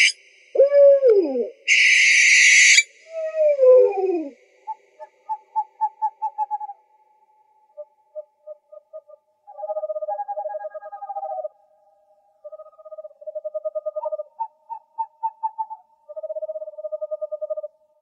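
Owl calls: two loud, harsh screeches in the first three seconds, each with a falling, wavering wail, then several quick runs of rapid, evenly spaced hoots, like trills, that stop and start.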